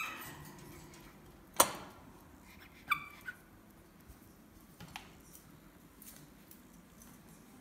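A pet monkey moving about in a wire cage: sharp knocks and clicks on the metal, the loudest about one and a half seconds in, and a couple of short high squeaks around three seconds in.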